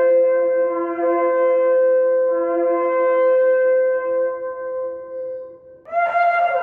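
Ram's horn shofar blown in one long sustained blast that fades out after about six seconds. A second, louder and higher blast starts just before the end.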